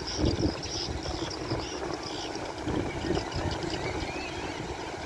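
Wind buffeting the microphone in uneven gusts, with faint distant voices from people on the riverbank.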